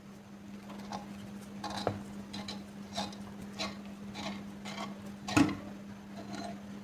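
Metal parts of a rusty spray gun being handled, clinking and knocking lightly about ten times, with one louder knock about five seconds in, over a steady low hum.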